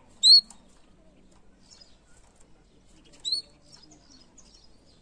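Domestic canary giving two short, loud rising call notes about three seconds apart, with faint scattered chirps between.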